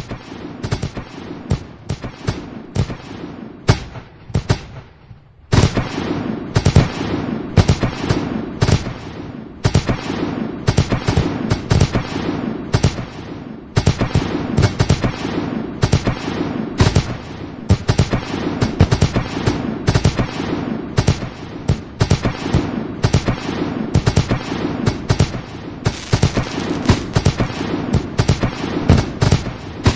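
Fireworks going off in a rapid, continuous barrage of bangs. There is a brief lull about five seconds in, then the bangs come thick and fast again to the end.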